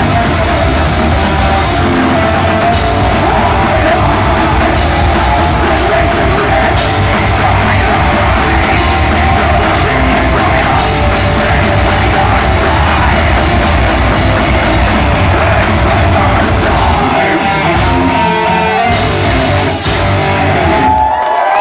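Metal band playing live: loud distorted electric guitars, bass guitar and drums with screamed vocals. Near the end the low end of the bass and drums falls away as the song finishes.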